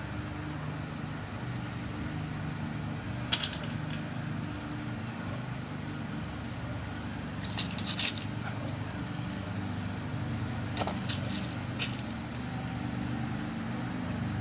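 A few small, sharp clicks as tiny brass lock pins are dropped into the chambers of a pin-tumbler lock cylinder while it is loaded for a new key, over a steady low hum.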